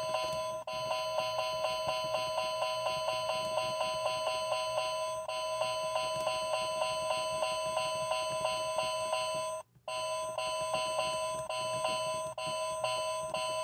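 Tozai talking alarm clock beeping rapidly, about four to five beeps a second, as its setting button is held and the displayed minutes step forward. The beeping breaks off for a moment a few times, when the button is let go.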